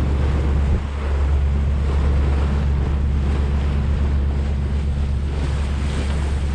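Wind buffeting the microphone over the steady rush of water along the hull of a sailboat under way.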